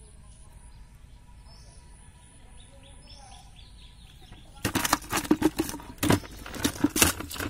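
A freshly caught fish flapping and splashing in a plastic basin of water: a run of loud, irregular slaps and splashes starting a little past halfway and lasting about three seconds. Before that, small birds chirp faintly.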